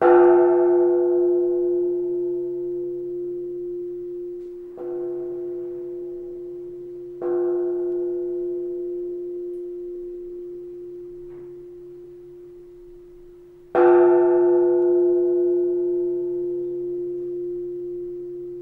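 Japanese temple bell (bonshō) struck four times with a swinging wooden log, each strike followed by a long, slowly fading ringing hum. The first and last strikes are the loudest; the two in between, about five and seven seconds in, are softer.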